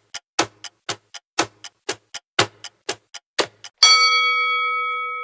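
Quiz countdown timer sound effect: a clock ticking about four times a second, loud and soft in turn. Near the end the ticking stops and a single bright chime rings out and slowly fades, marking time up and the answer reveal.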